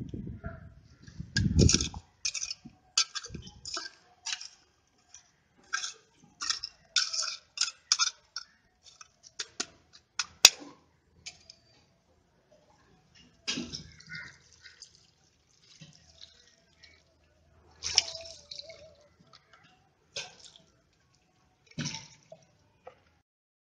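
Hands scraping and patting dry, stony soil around a planted seedling: irregular short scratchy crunches, thickest in the first half, with low bumps near the start.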